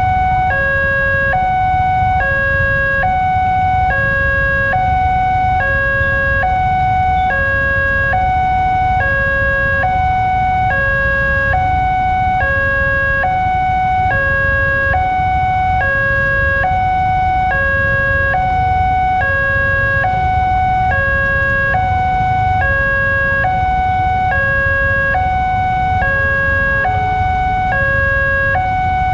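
Electronic warning alarm of a railway level crossing, steadily alternating between a higher and a lower tone, each held for well under a second; it signals that the crossing is closed for an approaching train.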